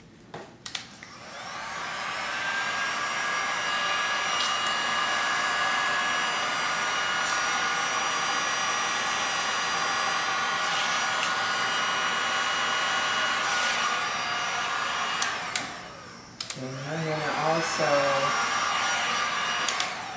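Heat gun blowing hot air over wet epoxy paint. It is switched on about a second in, its whine rising as the fan spins up, then runs steadily. It winds down around sixteen seconds in and comes back on briefly near the end.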